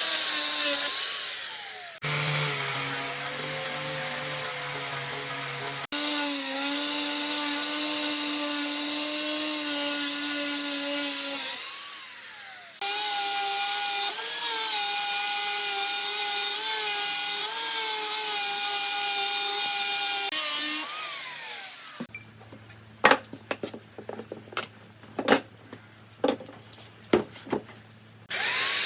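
An electric power tool runs and works wood in several short cut-together takes, its pitch dipping and wavering under load. Near the end it gives way to a string of sharp knocks, then the tool starts again.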